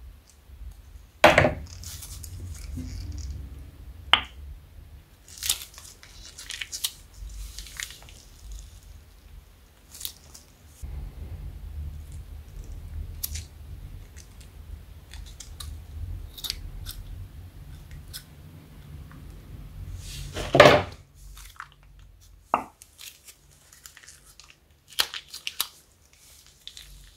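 Scissors snipping through the plastic tip of a slime-filled piping bag, two sharp snips, one near the start and one about three-quarters through, between them plastic bags crinkling and soft squelches as slime is squeezed out into a plastic bowl.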